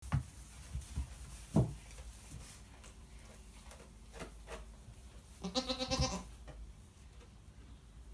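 A goat bleats once, about five and a half seconds in: a wavering call of under a second. Before it come a few short thumps and rustles in the hay, the loudest about a second and a half in.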